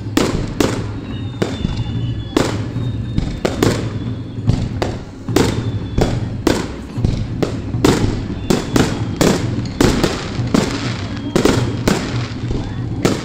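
Fireworks display: aerial shells bursting in a rapid barrage, sharp bangs coming about two a second over a steady low hum.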